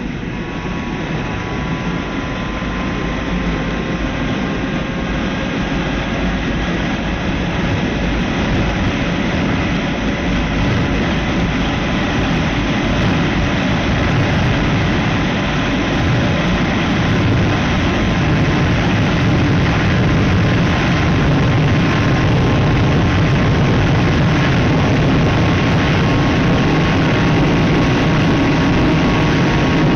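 Motorcycle engine running under way, mixed with heavy wind rush. The engine note climbs slowly and the sound grows louder over the first half, then holds steady at cruising speed.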